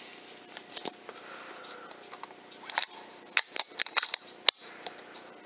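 A cluster of sharp mechanical clicks and clacks from an FX Hades .22 air rifle being handled, then one louder sharp crack about four and a half seconds in.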